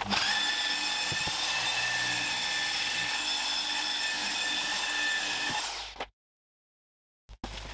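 Electric polisher running with a steady whine, its pad buffing metal polish into a bare aluminium body panel. It winds down and stops about six seconds in.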